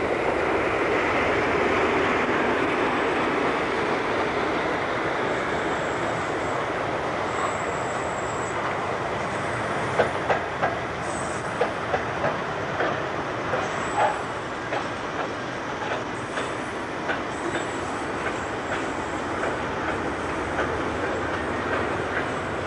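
British Rail Class 58 diesel locomotive passing under power, its engine note loudest in the first few seconds. From about ten seconds in, the freight wagons' wheels clatter over the rail joints in a run of sharp clicks, with brief high-pitched wheel squeals.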